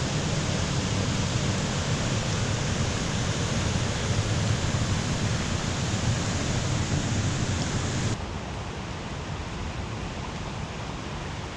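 Steady rush of water at a dam outflow, an even roar without breaks. About eight seconds in it turns abruptly quieter and duller.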